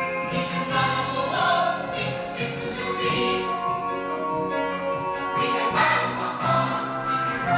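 A choir singing a song with instrumental accompaniment, the voices holding long sustained notes.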